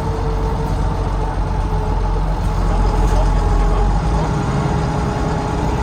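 Volvo D9B diesel engine of a Volvo B9TL double-decker bus running, heard from the rear seats, with a thin steady whine above the engine note. About four seconds in the deep engine drone drops away.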